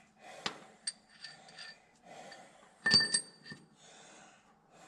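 Metal parts and tools clinking and clanking several times while a grain drill's fill auger mount is handled and bolted, with a louder ringing clank about three seconds in.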